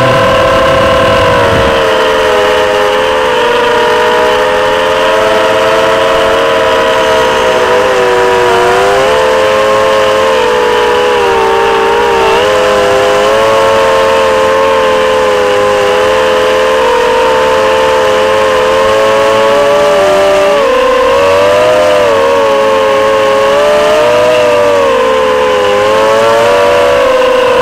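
Electric motors and propellers of an FPV drone, picked up by its onboard camera: a loud, steady whine made of several close pitches that dip and rise together as the throttle changes, dipping most deeply about two-thirds of the way through.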